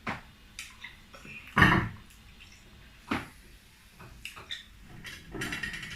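Cutlery knocking and clinking against a plate during a meal, in a handful of separate short knocks, the loudest about one and a half seconds in.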